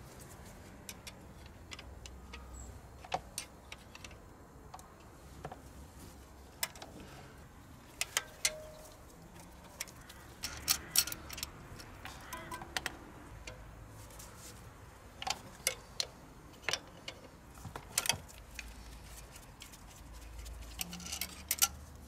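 Scattered light metallic clicks and clinks, irregular and often a second or so apart, from steel high-pressure fuel lines being handled and lifted off the injectors of a 1.5 dCi diesel engine.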